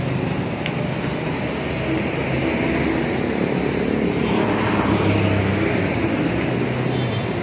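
Heavy road traffic: engines of motorcycles, jeepneys and cars passing in a steady din that swells a little about four to five seconds in.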